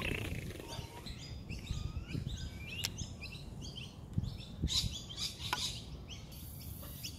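Birds chirping and calling in many short, quick repeated notes, over a low rumble of wind and handling on the microphone, with one sharp click about three seconds in.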